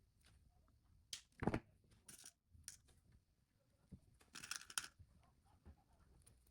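Faint clicks and snips of small jewellery tools and wire being handled while beading, a few sharper ones about a second and a half in and again between four and five seconds in.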